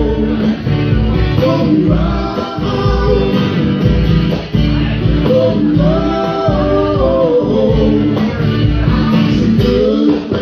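Live acoustic music: a man singing over a strummed acoustic guitar and a hand drum.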